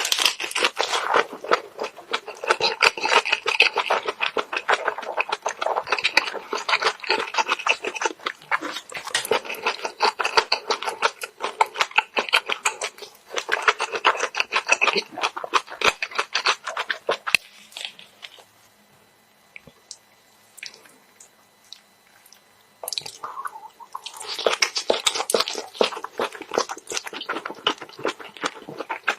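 Close-up chewing and crunching of food, a dense run of wet clicks and crunches. It stops for about five seconds past the middle, then starts again.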